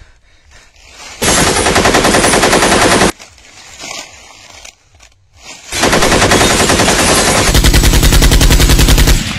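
Machine-gun fire sound effect: two long bursts of rapid automatic fire, the first about a second in and lasting about two seconds, the second starting just before the middle and running about three and a half seconds.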